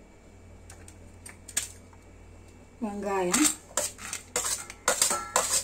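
Steel spoon clinking and scraping against a stainless-steel bowl and plate. There are a few isolated clicks at first, then a quick string of clinks in the second half as chopped onions are scraped off a steel plate into the bowl of peanuts.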